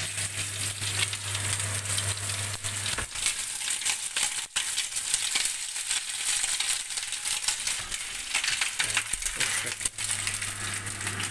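Strips of bacon frying in a hot nonstick frying pan, the fat crackling and spitting with many small pops. There is one sharp click about four and a half seconds in, and a low hum under the sizzle in the first few seconds and again near the end.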